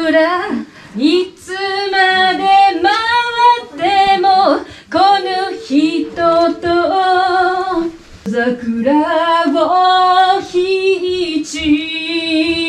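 A woman singing a Japanese enka song unaccompanied into a handheld microphone, with long held notes that waver with vibrato. The backing track has dropped out because of a bad internet connection.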